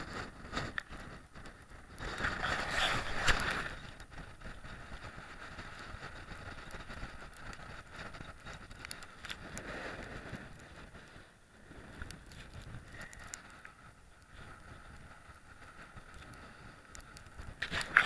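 Wind buffeting a body-worn action camera's microphone, with rustling and small knocks as the camera moves on the climber; a louder gust about two to three seconds in.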